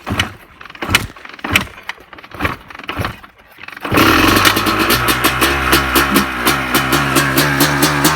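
Honda CR250R two-stroke motocross engine being kicked over cold: several separate kicks, then about four seconds in it fires and keeps running with a rapid, even pulsing.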